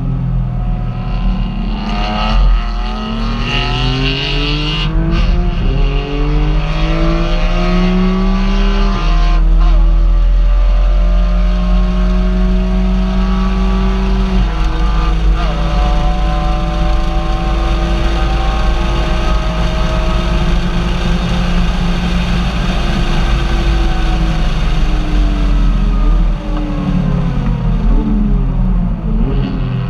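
Car engine accelerating through the gears: its pitch climbs, then drops at an upshift about nine seconds in and again around fourteen seconds. It then holds steady at cruise and falls away near the end as the car slows, over a steady low road rumble.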